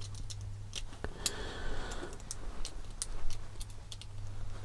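Scattered small clicks and ticks of a screwdriver and small plastic and metal RC kit parts being handled while a ball stud is threaded into the front suspension.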